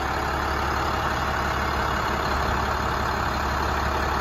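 2006 International 4400's DT466 inline-six turbo diesel idling steadily, with no change in speed.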